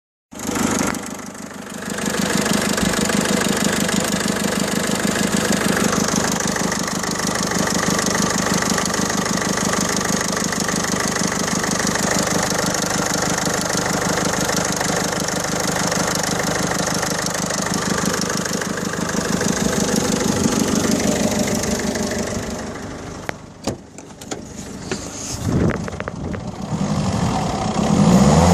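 Peugeot 1.6 HDi four-cylinder diesel engine running steadily with an even, rattly pulse. The owner likens the noise to a lawnmower and takes it for a fault. Near the end the running sound drops away, with a few sharp clicks.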